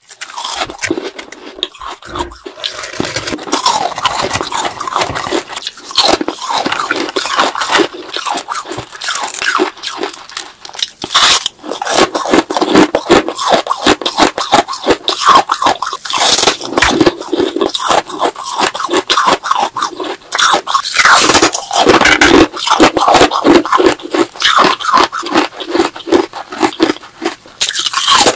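Frosty balloon ice, a block frozen inside a balloon, being scraped and broken apart by fingers and bitten and chewed, with continual crackling crunches.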